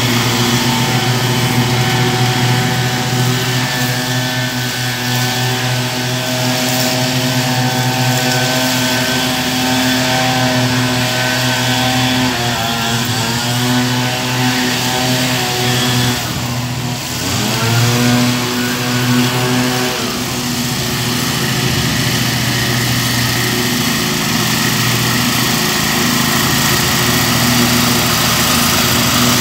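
Stand-on zero-turn lawn mower (Wright) engine running steadily while mowing, its pitch sagging and recovering briefly a couple of times midway.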